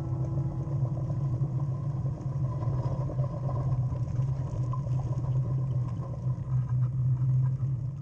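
Adaptive mobility equipment rolling along a tarmac road, heard as a steady low hum and rumble with light clatter.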